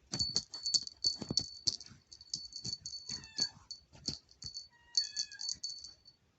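Small jingle bell on a cat toy jingling in quick rapid shakes as a cat plays with it, with short pauses about two seconds in and just before five seconds, stopping near the end.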